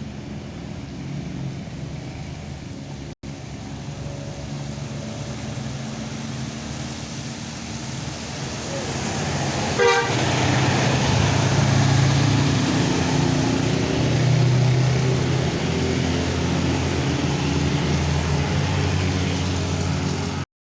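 Heavy road vehicle engine running close by, with horn toots. About halfway in there is a sudden loud burst, and the engine sound stays louder after it.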